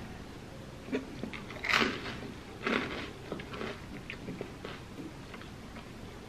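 Crunchy bites and chewing of a slice of crisp toasted bread with a soft banana-and-cheese topping. The loudest crunch comes just under two seconds in and another a second later, then quieter chewing crackles.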